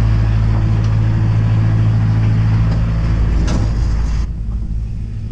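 Tractor diesel engine running steadily just after being started. About four seconds in, the higher hissy part of the sound drops away and it gets slightly quieter.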